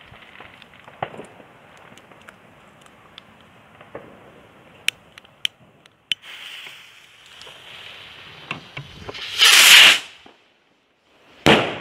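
A few sharp clicks while the rocket is lit. Then a skyrocket's fuse hissing for a couple of seconds, swelling into the loud rushing whoosh of its launch. After a short gap there is a single loud bang near the end as the rocket bursts.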